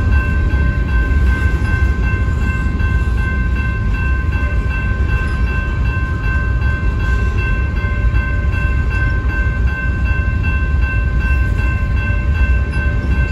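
Freight train of covered hopper cars rolling past a grade crossing with a steady, heavy low rumble. Above it, the crossing's warning bell rings on and on as high, steady tones.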